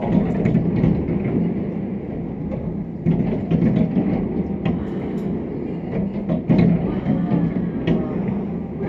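Fireworks display: a continuous low rumble of bursts with sharp crackling pops scattered through.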